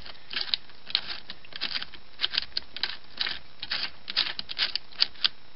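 A key being turned back and forth in a small test cylinder set in a Winkhaus multipoint main lock case, making light metallic clicks and rattles, about two to three a second at an uneven pace. The repaired lock mechanism is working smoothly.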